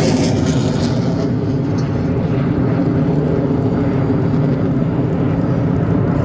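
Aircraft engine noise: a loud, steady rumble with a low hum, its higher hiss fading about a second in.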